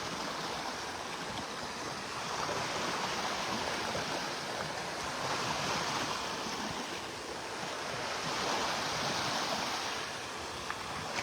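Gulf of Mexico surf washing up the beach: a steady rush of water that swells and eases about every three seconds.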